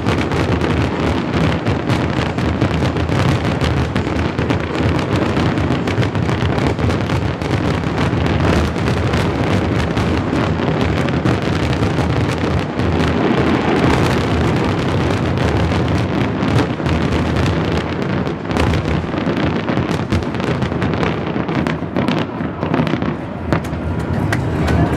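Fireworks finale barrage: a dense, continuous volley of bursts, with the bangs overlapping so closely that there is no pause between them.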